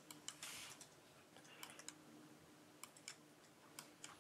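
Near silence: room tone with a faint steady hum and a few scattered faint clicks, plus a brief soft hiss about half a second in.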